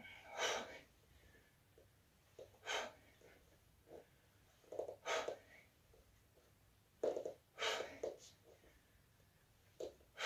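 A woman breathing hard through bodyweight squats: a strong exhale about every two and a half seconds, one per repetition, with quieter breaths between.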